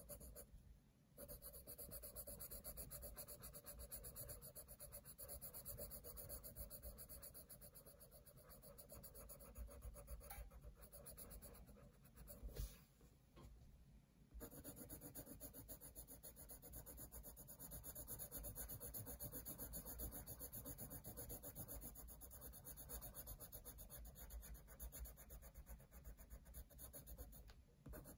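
Faint, rapid scratching of a colored pencil shading on paper in quick back-and-forth strokes. About halfway through it pauses for a second or two, with a single small tap, then the shading resumes.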